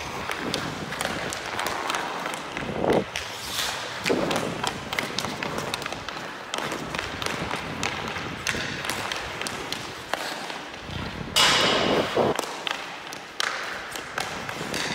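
Hockey skate blades scraping and carving on rink ice, with sharp clicks and knocks of a stick on a puck during stickhandling. A louder, longer burst of noise comes about eleven seconds in.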